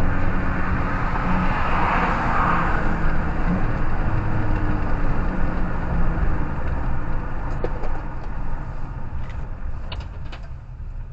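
Lawn mower engines running steadily, then growing fainter as they move away, with a few sharp clicks near the end.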